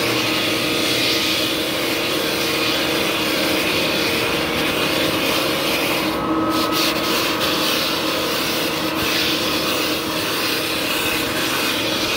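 Drum floor sander with 24-grit paper running steadily across mahogany deck boards: a continuous rasp of coarse abrasive on wood over the motor's steady hum, taking down high, warped boards.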